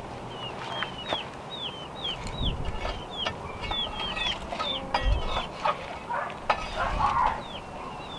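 Repeated short, high peeping calls from a bird, each falling in pitch, about two a second. Under them are scattered knocks and scrapes from a long wooden pole raking embers inside a clay dome oven.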